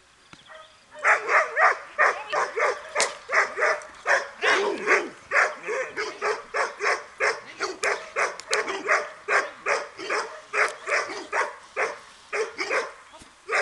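Dog barking rapidly and without a break, about three barks a second, starting about a second in.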